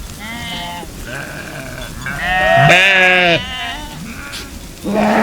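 A flock of sheep bleating, several wavering calls overlapping one another, the loudest about two to three seconds in.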